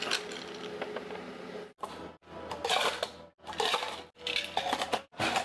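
Ice cubes dropped clattering into clear plastic cups, in several short bursts of clinks.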